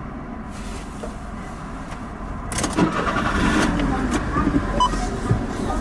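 Automatic car wash machine running, heard from inside the car: a rushing, spraying noise builds about half a second in and grows much louder, with scattered knocks, about two and a half seconds in, over a steady low rumble.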